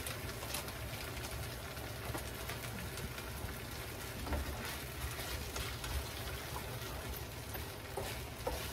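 Stir-fried vegetables and egg sizzling steadily in a frying pan as they are stirred with chopsticks, with scattered clicks of the chopsticks against the pan.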